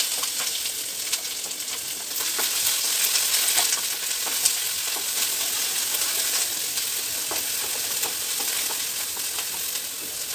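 Chopped onions sizzling in hot oil with cumin seeds in a frying pan, a steady hiss with scattered clicks of stirring.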